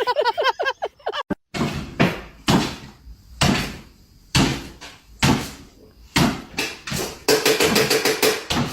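Short high chirpy calls, then after a sudden break a run of about a dozen sharp knocks and bangs, roughly one every half second to a second, like a door or cupboard being banged.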